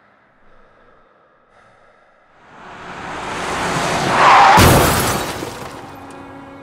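Film sound effect of a car crash: a rushing noise swells for about two seconds into one loud impact with shattering glass about four and a half seconds in, then dies away.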